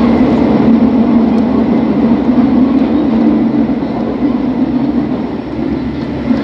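Kobe Municipal Subway 3000 series car running through a tunnel, heard from inside: a steady rumble of wheels on rail and traction equipment, easing slightly near the end.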